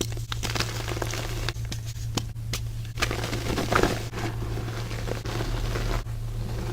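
Baking soda crumble being crunched and crumbled, a run of irregular crisp crackles and crunches, over a low steady hum.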